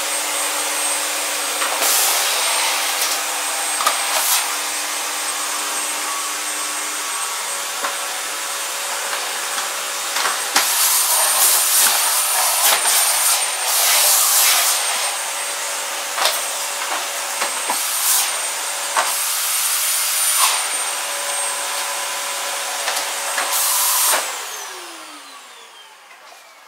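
Vacuum cleaner running steadily with a high whine, its rushing air rising and falling in surges, then switched off near the end, the motor's pitch sliding down as it winds down.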